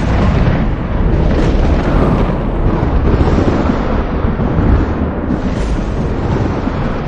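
Thunder rolling in a long, continuous low rumble that swells and eases several times.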